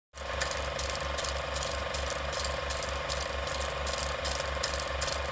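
Steady mechanical ratcheting clatter with an even beat of about four a second.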